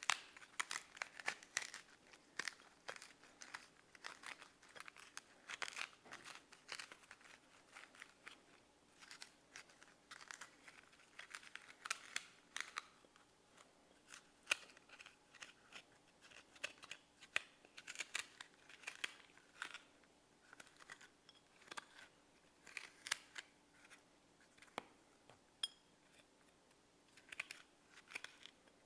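Knife cutting through raw quince: a run of short, crisp cuts and scrapes at an uneven pace.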